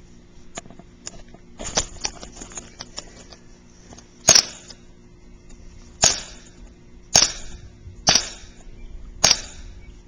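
WinGun 1911 full-metal CO2 non-blowback airsoft pistol firing five sharp shots. The first comes about four seconds in and the rest follow roughly a second apart, with a softer click earlier on.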